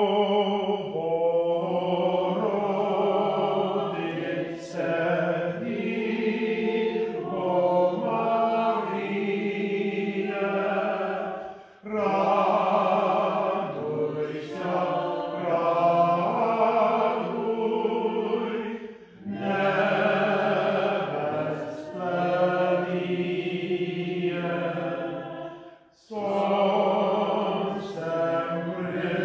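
Eastern-rite liturgical chant sung without instruments, in long held phrases with short breaths about twelve, nineteen and twenty-six seconds in.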